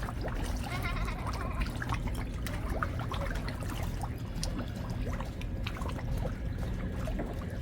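Water splashing and trickling with many small plops at the surface. A short, wavering bird call comes about a second in, over a steady low rumble.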